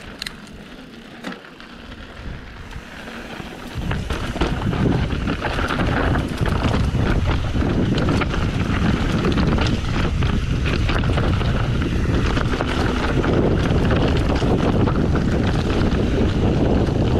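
Mountain bike descending a rocky trail: wind rushing over the GoPro's microphone, loud from about four seconds in as the bike picks up speed, with steady rattling and knocking as the tyres and frame go over rocks.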